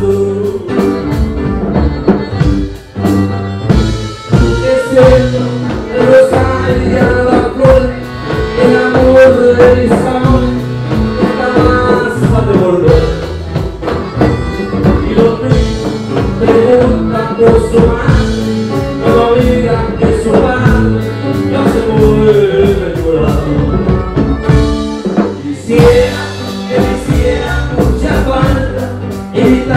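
Norteño band playing live: a man singing lead over a strummed bajo sexto, electric bass, accordion and drum kit, with a steady beat.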